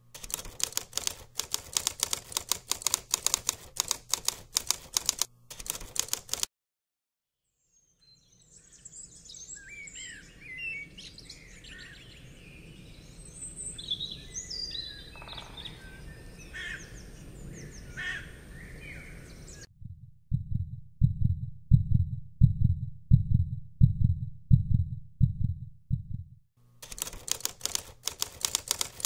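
Typewriter key clicks rattle for about six seconds, then stop. After a short silence, birds sing with chirps and short whistles over a soft outdoor hiss for about twelve seconds. Then comes a run of low heartbeat-like thumps, about two a second, and near the end the typewriter clicks start again.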